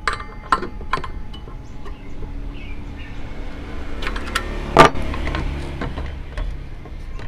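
Clicks and knocks of tools being handled on a wooden table, the loudest a single knock about five seconds in as a metal hex key is set down, over a low steady background rumble. The circular saw is not running.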